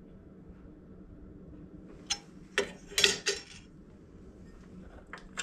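Several sharp metal clinks and knocks from steel parts and tools being handled on a belt grinder's platen assembly during adjustment, four close together around two to three seconds in and one more near the end, over a low steady hum.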